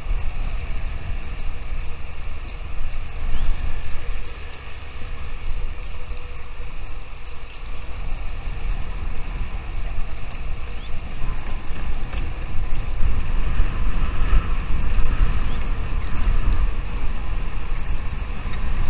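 Wind buffeting the microphone: a steady low rumble that swells and drops throughout.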